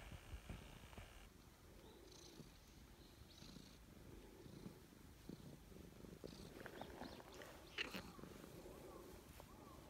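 Calico cat purring steadily while being stroked, a sign of contentment at the petting. A brief rustle and knock about eight seconds in as the cat rubs against a jacket.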